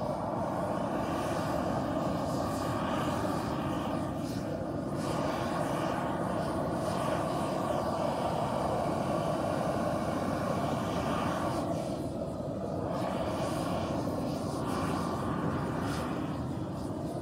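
Propane garden torch burner running steadily on a medium flame, charring wooden boards black for a light crackle char.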